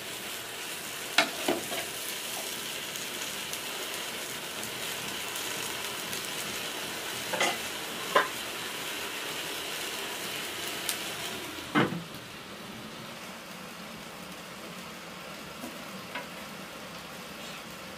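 Cauliflower sizzling in a metal pot over a wood fire, with a metal ladle clinking against the pot several times as it is stirred. A last, louder clank comes about twelve seconds in, after which the sizzle is quieter.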